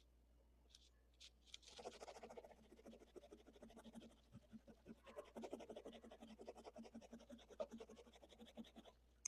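Faint, rapid scratching and rubbing on carpet, a dense run of small scratchy strokes that starts about a second and a half in and stops just before the end.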